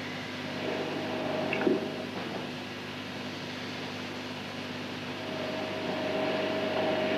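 Steady hiss and hum of an old recording, with a faint held tone that comes in briefly near the start and returns about five seconds in.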